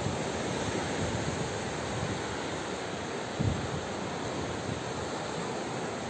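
Sea surf washing steadily onto a sandy beach, with wind buffeting the microphone in low thumps, the strongest about three and a half seconds in.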